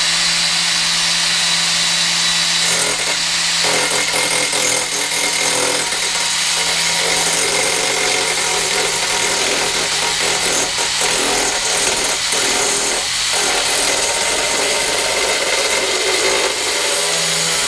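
Angle grinder with a cutting disc: its motor whines steadily at full speed, then from about three seconds in the disc bites into a clamped workpiece with a loud rough cutting noise that lasts until near the end, when it runs free again.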